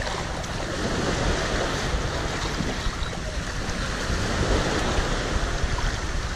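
Wind buffeting the microphone in a steady low rumble, over shallow seawater sloshing around the legs of people wading.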